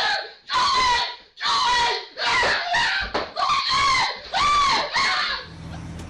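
A person screaming in about seven loud, separate bursts, the pitch arching up and down in each. Near the end the screams stop and a steady low hum is left.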